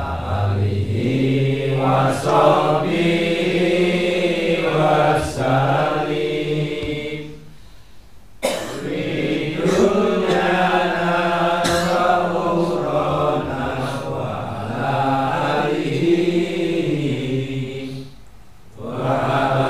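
A group of men chanting an Arabic devotional litany together in long sung phrases, breaking briefly for breath about eight seconds in and again near the end.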